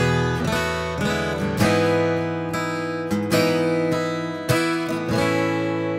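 Acoustic guitar strumming chords, each firm strum left to ring into the next, about one strum every second or so.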